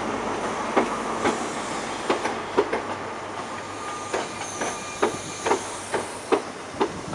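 Mark 3 coaches of a CrossCountry HST rolling slowly past, their wheels clacking over rail joints and points in sharp, irregular clicks, one or two a second, over a steady rolling noise. A brief faint wheel squeal comes near the middle.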